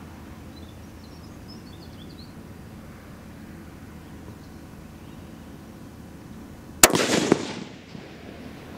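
A single shot from a bolt-action precision rifle fitted with a muzzle brake, about seven seconds in: a sharp crack followed by about a second of echo fading out.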